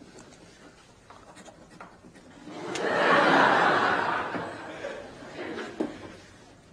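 Studio audience laughing: a swell of laughter rises about two and a half seconds in, peaks and then dies away, with only faint small ticks in the quiet before it.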